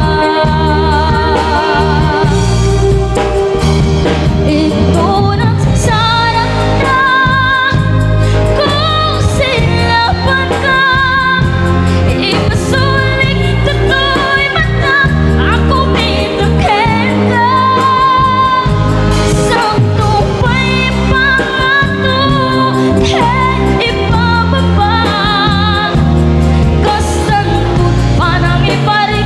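Live band playing an Ilokano pop song: sung vocals over electric bass, drums and guitar, with a steady beat.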